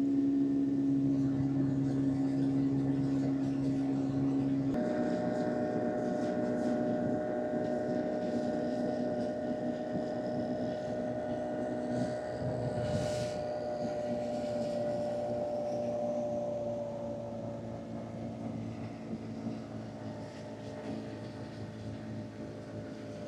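Yamaha outboard motor on an inflatable boat running steadily under way. Its note changes abruptly about five seconds in and grows fainter toward the end.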